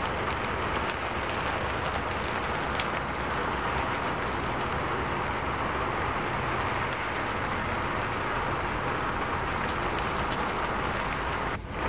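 Steady hiss of heavy rain and traffic on wet city streets, with a few faint ticks. The sound dips briefly near the end.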